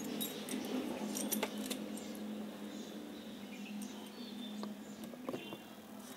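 Small metal parts of a spinning reel clicking and clinking as the reel is taken apart by hand. Most of the clicks come in the first two seconds and a few more come near the end, over a steady low hum.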